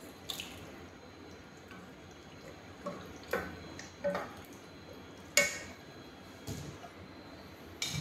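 Macaroni is scraped out of a plastic strainer into a steel pot, with wet plops and a series of sharp knocks as the spatula and wooden spoon strike the strainer and the pot. The loudest knock comes about five seconds in.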